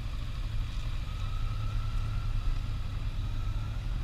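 Kawasaki motorcycle engine idling steadily, a low even rumble picked up by the rider's helmet camera.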